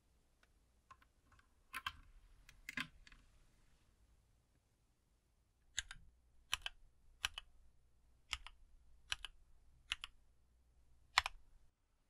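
A USB-C cable being plugged into a mechanical keyboard with a few clicks and knocks, then seven separate single keystrokes on Gateron Silent Brown switches, about one every 0.8 seconds.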